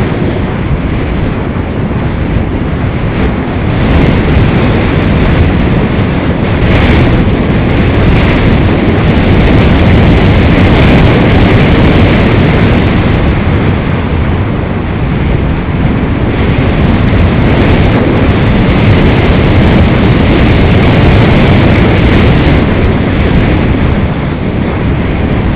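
Loud, steady rush of airflow buffeting the onboard camera's microphone on an EasyGlider Pro RC glider in flight, swelling and easing slightly over time.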